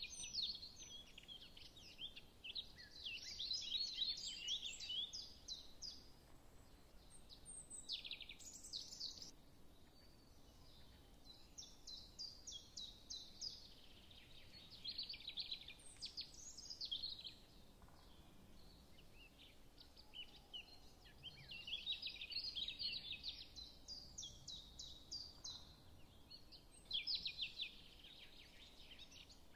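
Small birds chirping and twittering in quick runs of high notes that come and go every few seconds, over faint background hum.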